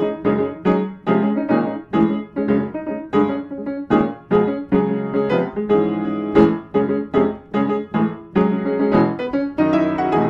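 Piano music: notes and chords struck one after another at a steady, moderate pace, each one ringing briefly before the next.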